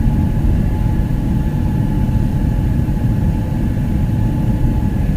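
Boeing airliner's jet engines running with a steady low roar and a faint steady whine over it.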